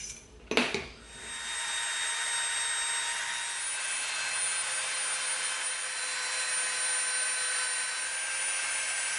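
A sharp knock, then a Dremel rotary tool spins up about a second in and runs steadily with a high whine, sanding the edges of a small EVA foam disc round.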